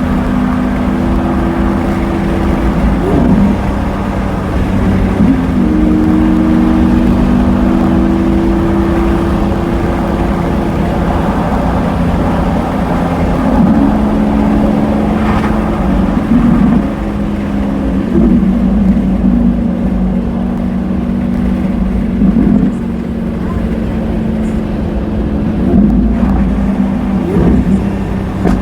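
Lamborghini Aventador S's V12 running through a Power Craft aftermarket exhaust as the car is driven. The note holds steady for stretches, then steps up or down in pitch every few seconds, with brief blips of throttle in between.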